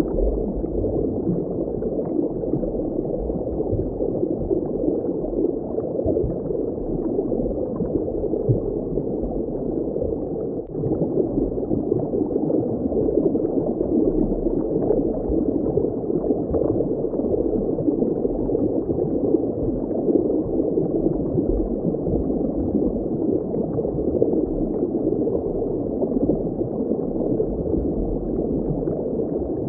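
Steady, muffled water ambience: a continuous rush of water with no high end. It dips briefly about ten seconds in.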